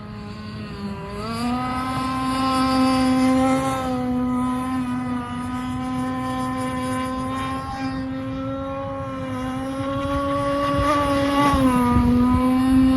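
Two-stroke gas engine of an RC boat, a TK 27 EVO, running at high revs with a steady buzzing note. The pitch rises about a second in as the throttle opens, holds, and dips briefly near the end before picking up again.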